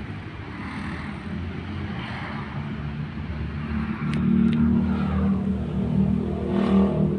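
A motor vehicle engine running, a low steady hum that grows louder about four seconds in.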